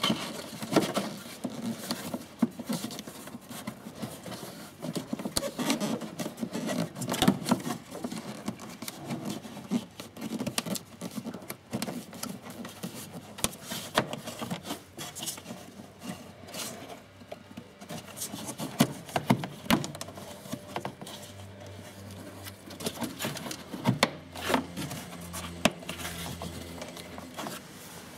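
A new pleated cabin filter being worked by hand into its plastic housing: plastic rubbing and scraping with many irregular sharp clicks and knocks.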